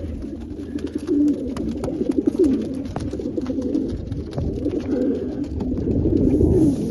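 A flock of yearling racing pigeons cooing together, crowded into a transport trailer, a continuous overlapping warble with scattered small clicks.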